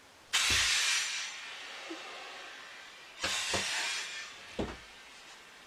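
Loud hissing: a sudden hiss about half a second in that fades over a second, and a second hiss about three seconds in, with a few dull low thuds between them.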